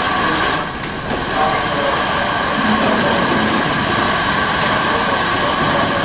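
Sausage co-extrusion line machinery running: a loud, steady mechanical din with constant high whining tones over it.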